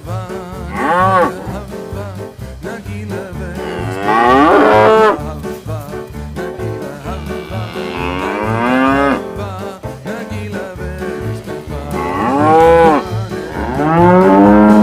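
Cattle mooing about five times, each long moo rising and then falling in pitch. Background music with a steady beat runs underneath.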